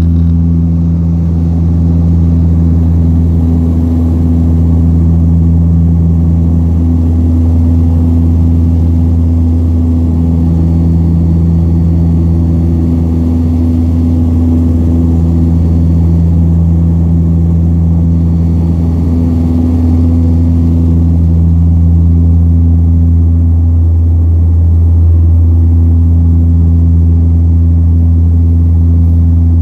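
Cabin drone of the Antonov An-24's two Ivchenko AI-24 turboprop engines and propellers: a loud, steady low hum with higher tones that fade out and come back every few seconds.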